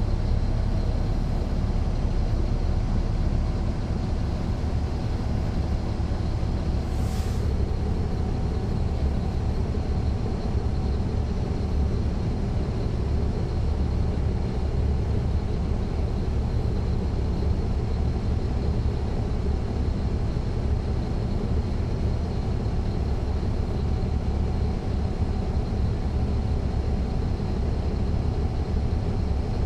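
Caterpillar C13 ACERT inline-six diesel engine and ZF Ecomat transmission of a NABI 40-SFW transit bus running with a steady, loud low rumble, heard from the rear seats inside the bus. A brief hiss cuts in about seven seconds in.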